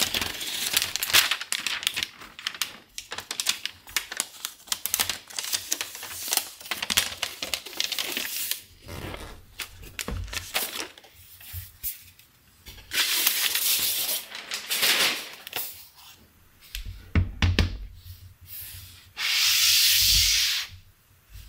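Paper protective wrapping on a new MacBook Pro being peeled off and unfolded by hand: crinkling, tearing rustles for the first several seconds, then scattered rustling. Near the end come a few soft bumps and a smooth sliding hiss of about a second and a half as the aluminium laptop slides over the wrap.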